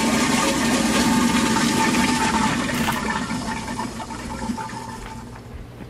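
Toilet flushing, a steady rush of water that fades over the last couple of seconds, with a single click about three seconds in.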